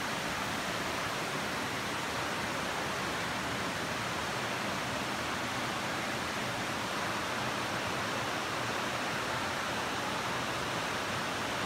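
Steady rush of a mountain creek tumbling over rocks below a small waterfall, an even, unbroken hiss of white water.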